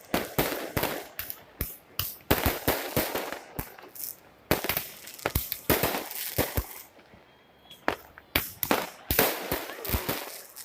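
Fireworks going off in a rapid, irregular series of sharp bangs and crackling reports, with a short lull about seven seconds in before the bangs resume.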